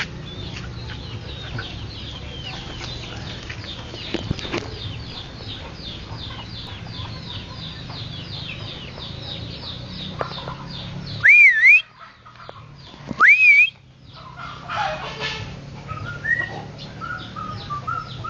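Two loud, wavering whistles about halfway through, a person whistling to call the dog back, over a rapid run of high chirps. Softer short chirping notes follow near the end.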